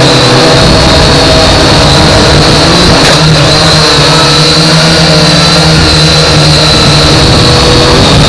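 Global Drone X183 quadcopter's motors and propellers, heard close through its own onboard camera: a loud, steady high whine over a low hum, drifting slightly in pitch as the drone manoeuvres.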